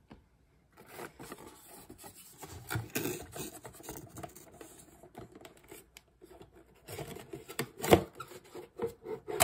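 Cardboard box of a wine glass being handled and opened by hand: irregular rubbing, scraping and tapping of the packaging, with a sharper knock about eight seconds in.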